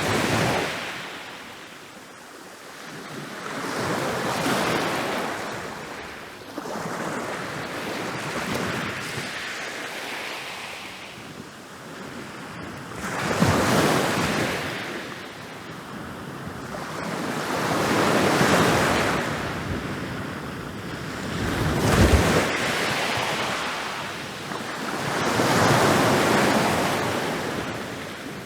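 Ocean waves rolling in and breaking on a beach, each one a rushing hiss that swells and fades. A new wave comes about every four to five seconds, and two of them, about halfway through and near the end, break harder than the rest.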